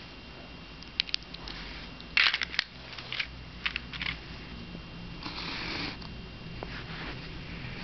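Light clicks and taps of small plastic toy bricks being picked up and handled, with a quick cluster of sharper clicks about two seconds in. About five seconds in comes a short rustle as a plastic cup is slid across the carpet.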